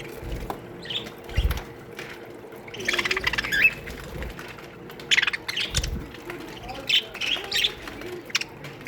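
Budgerigars in an aviary colony chattering and chirping in short warbling bursts, with a few low thumps.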